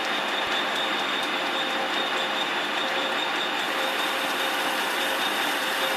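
Metal lathe running in gear while a sharp high-speed steel bit turns down the workpiece: a steady mechanical whirr with a steady high whine, the tool cutting cleanly.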